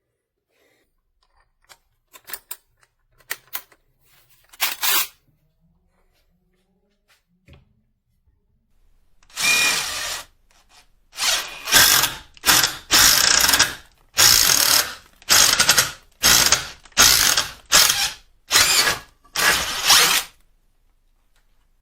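A power drill run in about ten short bursts of a second or less, with a ratcheting clatter, after a few faint clicks.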